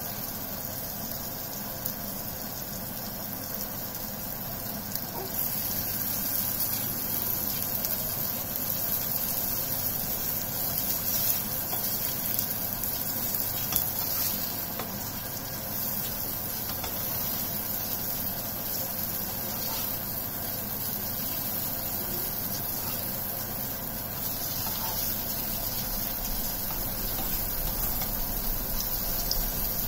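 Aubergine slices sizzling steadily in hot oil in a frying pan, with a spatula now and then moving and turning them.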